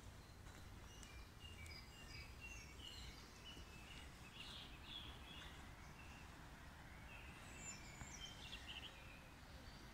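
Faint birdsong: many short, high chirps and trills from small woodland birds, over a low rumble.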